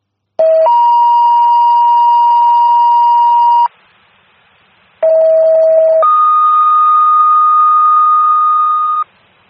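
Two two-tone sequential paging alerts over the fire dispatch radio. Each is a lower steady tone followed by a higher one held about three seconds; the first page's lower tone is very short, the second's lasts about a second, and the second page's high tone is a little higher. These are the tone-outs that set off the pagers and station alerts of the fire companies being dispatched.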